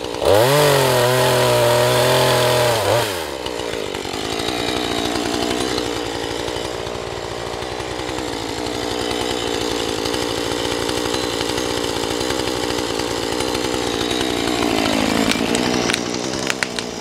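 Husqvarna 435 two-stroke chainsaw running at full throttle in the cut, its pitch dipping under load, then dropping to a steady idle about three seconds in. A few sharp cracks come near the end.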